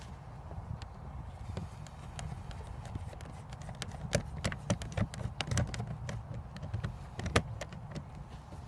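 Scattered sharp clicks and taps, busiest through the middle with the loudest near the end, over a steady low rumble.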